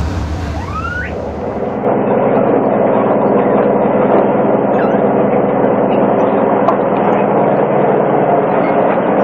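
Steady machinery din on a squid-jigging boat's deck, a low engine hum under a constant rushing noise. A short rising squeal sounds under a second in, and the din grows a little louder about two seconds in.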